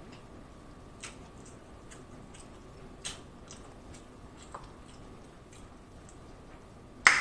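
Scattered light clicks and taps of mussel shells being picked from a seafood boil and pried apart by hand, about one a second, with a sharper click just before the end.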